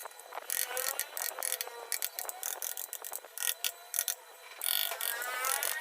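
Rapid, irregular clicks and scrapes of a hand carving tool cutting into wood, densest near the end.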